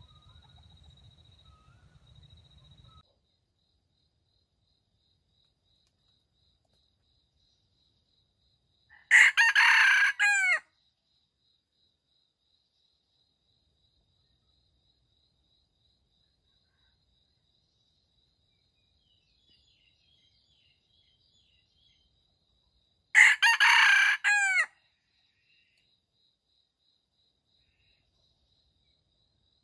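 A wild junglefowl rooster crowing twice, each crow about one and a half seconds long, the second about fourteen seconds after the first. A faint, steady, high insect trill runs underneath.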